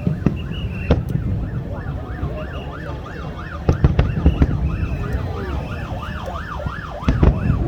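Fireworks going off: sharp bangs, heaviest about four seconds in and again near the end, over a dense din of warbling whistles that rise and fall several times a second.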